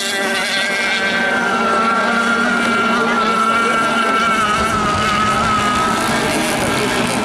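Racing outboard motor of a T-boat running at high revs: a steady, high engine whine that wavers slightly in pitch.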